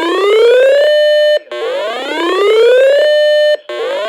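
Emergency alert tone on a radio broadcast: a loud, buzzy whoop that rises in pitch over about a second, holds one steady note for half a second, breaks off briefly and starts again, repeating about every two seconds.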